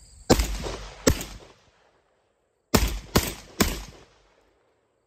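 Aksa S4 semi-automatic 12-gauge shotgun (a Turkish Benelli M4 clone) firing five shots: two about a second apart, then after a short gap three in quick succession.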